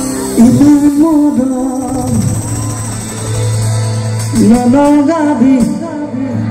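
Live Assamese Bihu song through a stage PA: a male singer sings two melodic phrases over band accompaniment, with a steady low note held underneath from about two seconds in.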